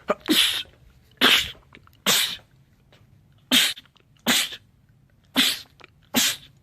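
A man sneezing seven times in quick succession, about one sneeze a second, each short and sharp.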